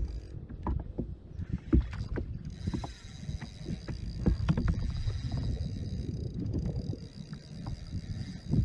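Water slapping and splashing around a kayak with irregular knocks against the hull as a hooked kahawai is played. A faint steady high whine runs through the middle few seconds.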